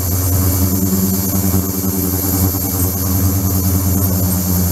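A 72 kHz, 300 W ultrasonic tank system running with a resin container in its water: a steady low electrical hum with thin high-pitched tones above it, unchanging throughout.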